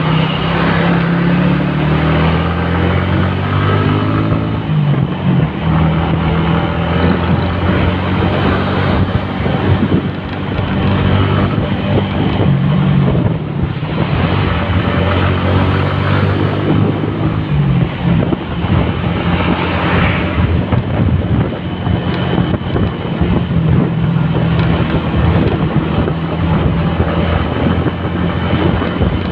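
Motorcycle engine running while riding through heavy city traffic, its pitch shifting a few times as the rider eases off and speeds up again, with the noise of buses and cars alongside.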